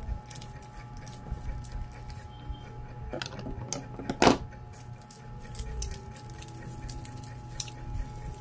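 Close-up eating sounds: biting and chewing soft white bread, with irregular small clicks and one louder bite about four seconds in, over a steady background hum.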